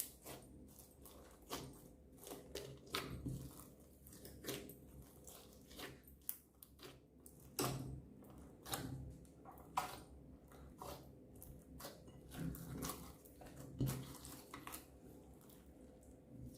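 Slime being squished and kneaded by hand, with irregular sticky pops and crackles of air bubbles.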